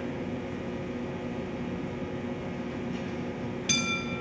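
Steady low mechanical hum with a few steady tones running through it. About three and a half seconds in, a single bright ringing tone starts sharply and fades.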